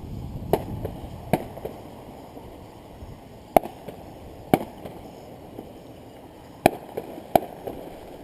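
Fireworks going off: about six sharp bangs at irregular intervals, with fainter pops between them.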